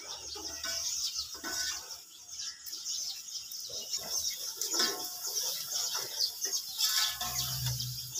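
Small birds chirping repeatedly, over the spoon stirring spices frying in a steel pot.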